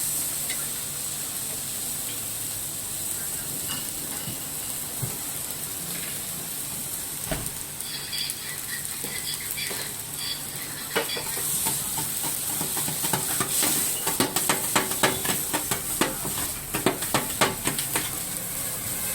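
Fried rice sizzling on a hot teppanyaki iron plate, a steady hiss throughout. From about halfway through, a metal spatula clacks and scrapes quickly against the plate as the rice is stirred, the strikes densest near the end.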